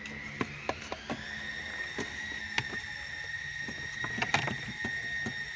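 Plastic centre-console trim clicking and knocking as it is handled and fitted, over a steady high-pitched whine; a second, higher tone glides up during the first second and then holds.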